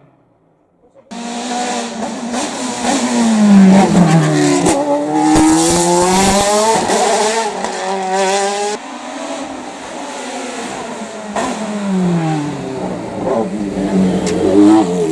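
Hillclimb race car engines at hard throttle, revs rising and falling through gear changes. The engine sound starts abruptly about a second in, and a second car takes over near the middle.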